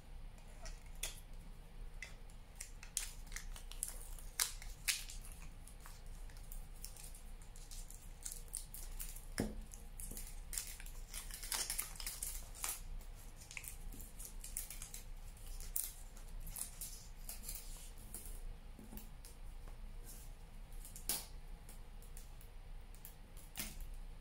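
Aluminium foil crinkling and crackling as small pieces are wrapped and squeezed around the joints of a wire armature, with many irregular sharp crackles.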